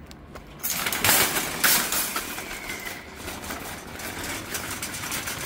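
Wire shopping trolley rattling as it is pushed over brick paving, with two louder clatters a second or so in.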